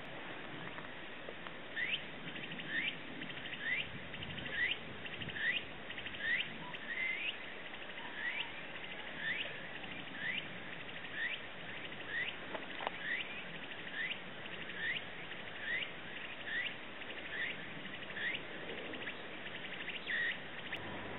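A calling animal repeating a short chirp that rises in pitch, very regularly about once a second, over a steady outdoor background hiss.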